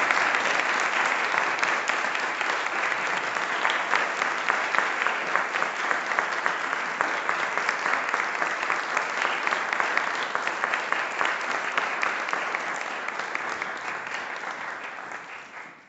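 Audience applauding steadily, a dense patter of many hands clapping, which dies away near the end.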